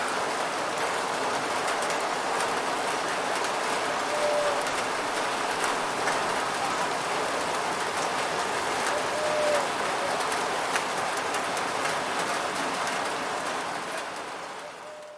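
Steady rainfall, a dense hiss of rain with scattered individual drop ticks, fading out near the end.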